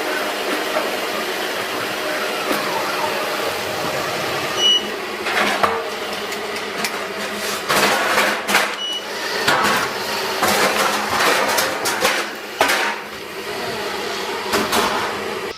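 Robot vacuum running with a steady whir, and from about five seconds in a string of knocks and rattles; two short high beeps about four seconds apart.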